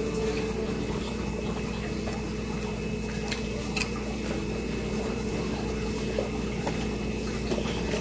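Soft close-up eating sounds, chewing a grilled cheese sandwich and a sip of juice through a plastic straw, over a steady low electrical hum, with a couple of faint clicks about halfway through.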